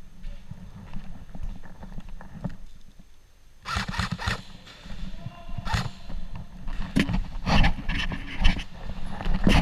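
Footsteps and gear knocks of a player moving on foot, starting about a third of the way in and getting louder toward the end, over a steady low rumble of wind or handling on the microphone.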